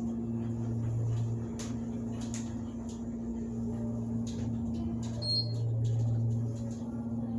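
A 2003 KONE hydraulic elevator cab in travel, with a steady low mains-pitched hum, a few light clicks and a short high beep about five seconds in.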